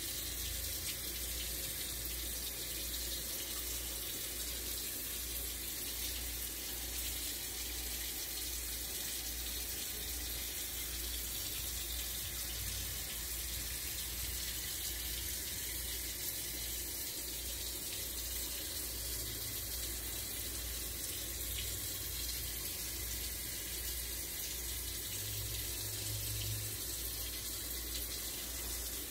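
Steady rushing noise like running water, with a faint low hum that pulses evenly beneath it.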